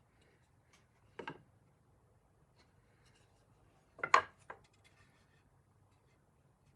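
Two short handling noises in a quiet room: one about a second in, and a louder one about four seconds in, followed closely by a smaller one.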